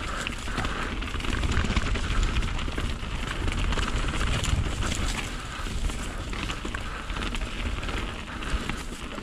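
Mountain bike ridden along a wet trail: tyres rolling over wet, stony ground with many small rattles and clicks from the bike, and wind rumbling on the microphone.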